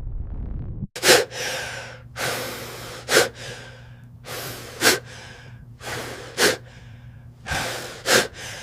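A person coughing five times, roughly every second and a half, each sharp cough led in by a noisy breath drawn in. A low rumble fills the first second.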